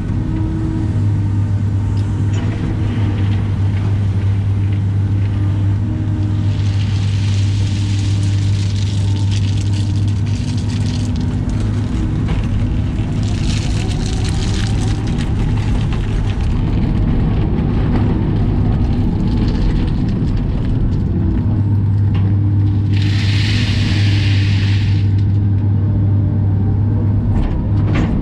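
Caterpillar excavator's diesel engine running with a steady drone, heard from inside the cab, while the hydraulics work the bucket through loose rock. Three bursts of hiss come and go over it.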